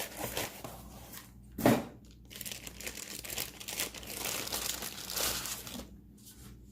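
Packaging crinkling and rustling as a kitchen grater is unwrapped and handled, irregular crackles with one louder crunch about a second and a half in.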